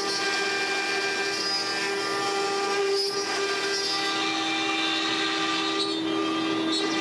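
ShopBot Desktop CNC router spindle running with a steady, high whine while its bit carves letters into a white oak sign, with a rushing hiss under it.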